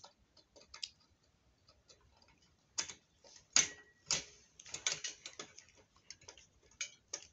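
Scattered light clicks and a few sharper knocks at irregular spacing, from a hand screwdriver and screws being worked into a folding workbench's frame.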